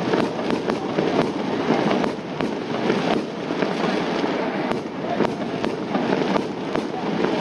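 Fireworks display: many irregular sharp bangs of bursting shells, several a second, over a continuous rumble of further explosions.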